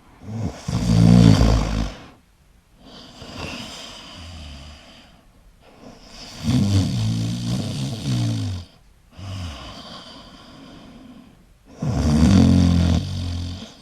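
A sleeping person snoring: three loud snores about six seconds apart, with softer breaths between them.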